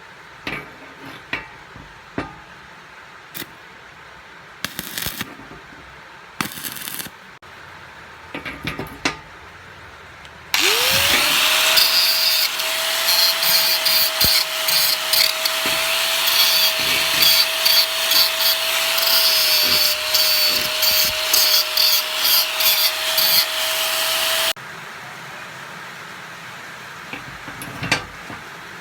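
Handheld electric power tool spinning up and running for about fourteen seconds with a steady whine over a loud rough working noise against the workpiece. It stops suddenly. Before it start there are scattered clicks and knocks of parts being handled.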